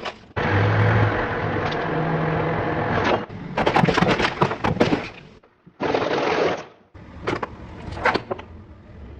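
Car tyres rolling over objects and crushing them, with crunching and cracking as they break, in several short clips cut one after another. A steady rolling noise with a low hum opens, followed by a run of dense crackling breaks and then scattered cracks.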